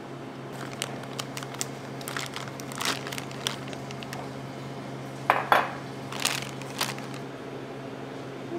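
Plastic piping bag crinkling as it is handled, with light clicks, then two sharper clinks about five seconds in, over a steady low hum.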